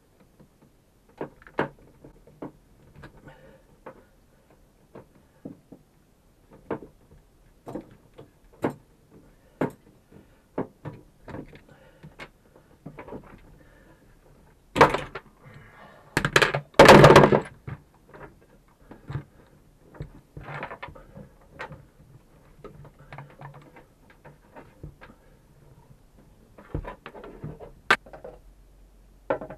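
Scattered knocks, clicks and clunks of hands working loose freshwater hoses and their fittings in a small boat compartment, with two louder, longer handling noises about 15 and 17 seconds in.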